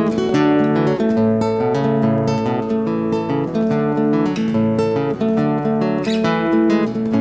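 Music: an acoustic guitar strumming chords that change every half second or so.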